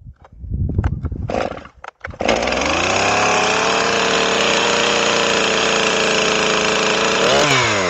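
Stihl MS311 two-stroke chainsaw pull-started on the selector's second position, catching about two seconds in and then running steadily at fast idle; its pitch drops near the end.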